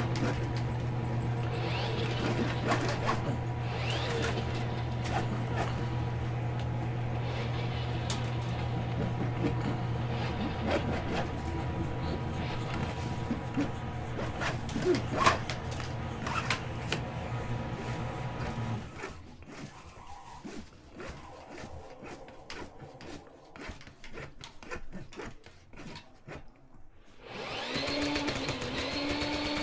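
A machine running with a steady hum that cuts off about two-thirds of the way through, leaving scattered clicks and rattles. Near the end a different, higher-pitched motor starts up and runs steadily.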